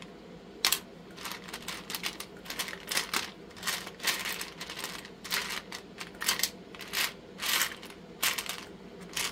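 Small resin charms clicking and rattling against each other and the plastic storage box as a hand sorts through them, in irregular clicks and short clatters.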